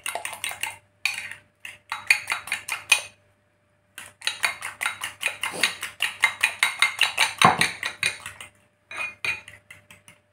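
Fork beating raw eggs in a glass bowl: rapid, even clicks of metal tines against the glass, several a second, in spells with short pauses. A heavier knock about seven and a half seconds in.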